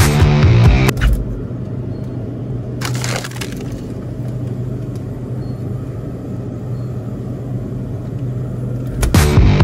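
Steady low hum of store ambience, with a brief crinkle or rattle about three seconds in, likely a packaged item being handled at a refrigerated case. Background music cuts out about a second in and comes back near the end.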